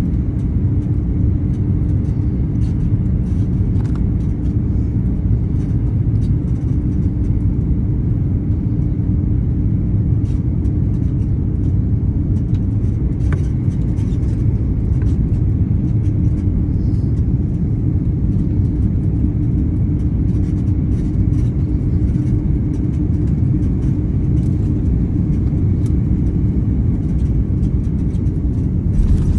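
Cabin noise of an Airbus A340-600 on final approach, heard from a window seat over the wing: the steady loud rumble of its four Rolls-Royce Trent 500 engines and the airflow, with a steady hum running underneath.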